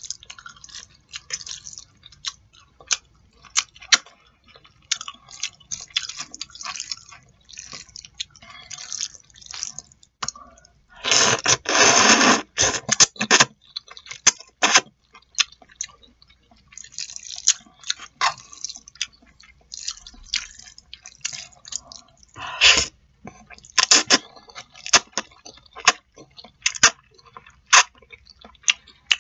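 Close-miked eating sounds of jajangmyeon, noodles in black bean sauce: many short wet smacks and chewing clicks, with a long, loud slurp of noodles about eleven seconds in and two shorter loud slurps later on.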